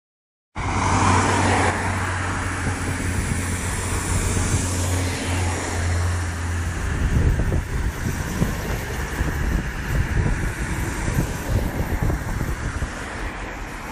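Strong wind gusting over a phone's microphone, a loud, rumbling rush that starts suddenly about half a second in.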